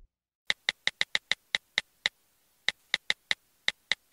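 Keyboard typing sound effect: a run of short, sharp, identical clicks at an uneven pace of several a second, with a brief pause just after two seconds in, going with text being typed out on screen.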